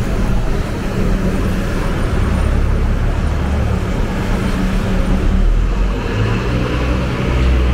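City street traffic: cars and other vehicles running past in a steady low rumble.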